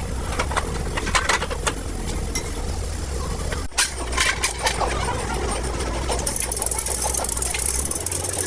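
Workshop machinery with a steady low hum and irregular sharp metallic knocks; a hissing noise comes in after about six seconds.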